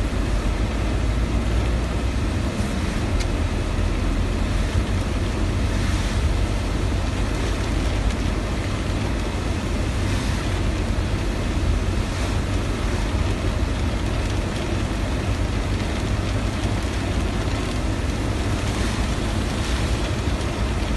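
Steady cabin noise of a vehicle driving through heavy rain: a low rumble of engine and road with the hiss of tyres on the wet road and rain on the windscreen.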